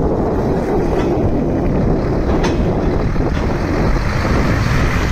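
Wind buffeting the microphone: a steady, rough low rumble.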